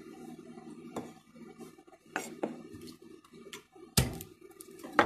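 Kitchen knife chopping red capsicum on a wooden chopping board: a handful of separate knocks of the blade on the board, the loudest about four seconds in.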